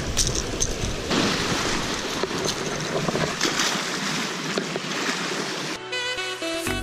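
Surf washing over rocks, with wind on the microphone and a few faint ticks. Music starts in the last second.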